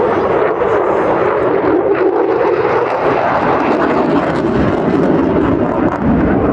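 Aircraft flying past, a loud steady engine roar.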